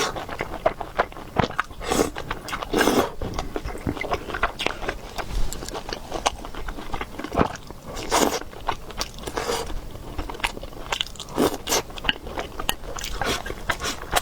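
Close-miked mouth sounds of eating noodles: wet chewing and biting, with many small sticky clicks and a few longer, fuller mouthfuls.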